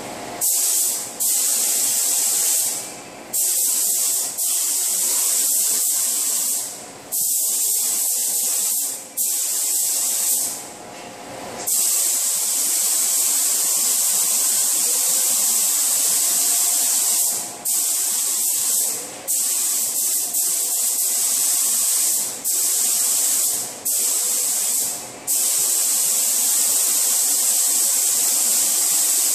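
SATA paint spray gun hissing as compressed air atomises paint onto a car bumper. It sprays in passes of a few seconds, with about ten short breaks where the trigger is let go, and one longer unbroken pass in the middle.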